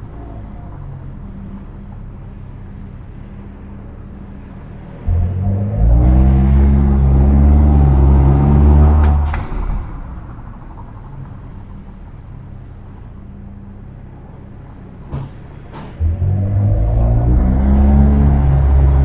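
Suzuki Swift Sport ZC33S's K14C 1.4-litre turbo four through an HKS Hi-Power SPEC-L exhaust, heard from inside the cabin and echoing off the concrete of a spiral car-park ramp. It runs quietly at light throttle, then accelerates hard about five seconds in, rising in pitch for about four seconds before lifting off, and surges again about sixteen seconds in. A couple of brief sharp clicks come just before the second surge.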